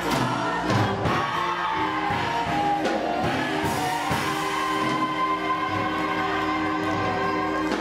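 Gospel church choir singing held chords with instrumental accompaniment and a regular drum beat.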